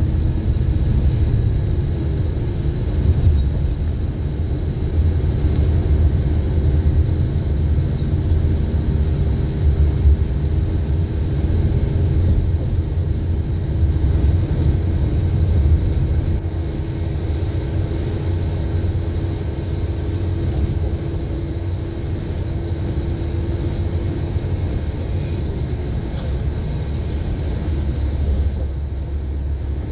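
Steady low rumble of a moving vehicle heard from inside its cabin, with a faint steady hum above it that fades out about three-quarters of the way through.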